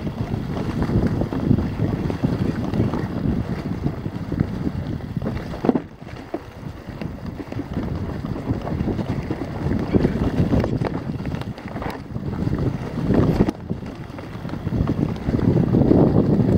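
Wind buffeting the microphone of a chest-mounted camera on a descending mountain bike, with tyres rolling over leaf litter and dirt and the bike knocking and rattling over bumps in the trail. The noise drops briefly about six seconds in and swells again near the end.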